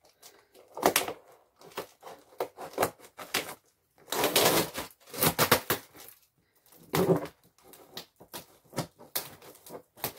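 Cutting into a tightly packed cardboard box: irregular clicks and scrapes, with louder scraping and rustling bursts about four, five and seven seconds in.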